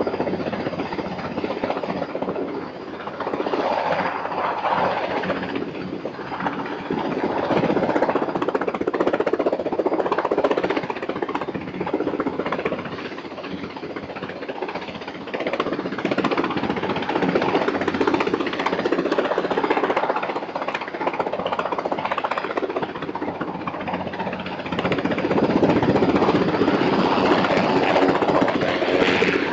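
Helicopter hovering under a slung load, its rotor beating rapidly and steadily; the sound swells and eases every few seconds.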